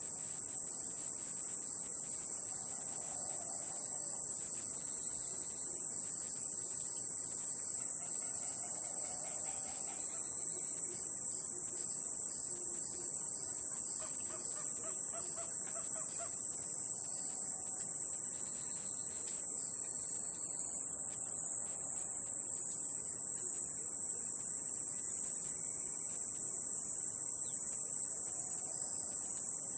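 Rainforest ambience: a continuous high-pitched insect chorus of crickets, with a few faint animal calls lower down now and then, one a quick repeated pulsing about halfway through.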